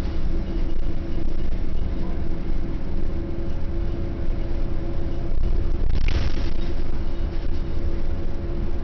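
Interior noise of a 1996 Orion V transit bus running: a steady low engine and drivetrain rumble with a steady hum, and a brief hiss about six seconds in.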